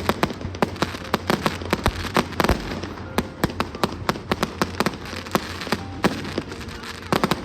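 Firecrackers and fireworks going off nonstop in quick, irregular succession: many sharp cracks and pops, with a couple of deeper bangs about two seconds in.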